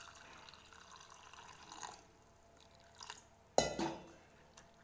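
Water pouring faintly into a small pressure cooker full of soaked chana dal for about two seconds, then stopping. A sharp knock about three and a half seconds in, followed by a couple of lighter ones.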